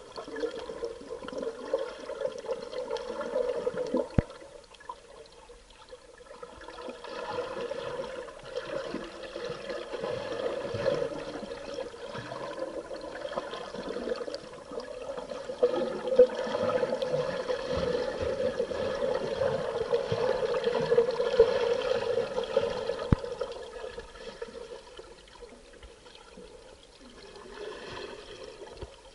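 Underwater scuba breathing: bubbles from a diver's regulator exhaust bubbling and gurgling. They come in swells several seconds long with quieter stretches between breaths.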